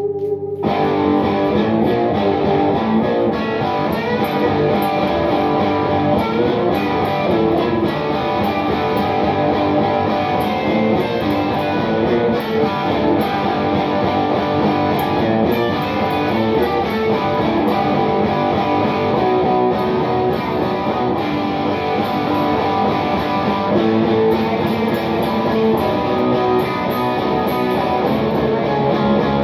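Solid-body electric guitar played steadily, chords strummed and picked, after a brief break about half a second in.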